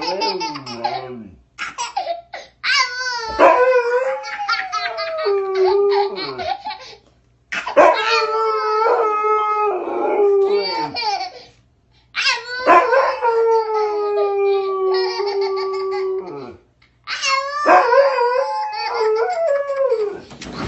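A husky howling in long drawn-out howls, in bouts of a few seconds with short breaks between them. A toddler laughs and squeals along with it.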